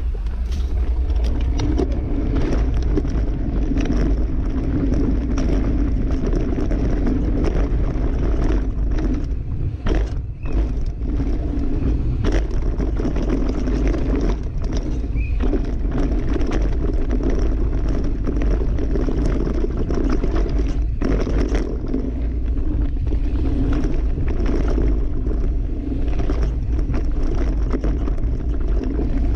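Wind rushing over the microphone of a bike-mounted action camera on a downhill mountain bike at speed. The bike rattles and clatters continuously as its tyres run over rough dirt, with many small knocks from the bumps.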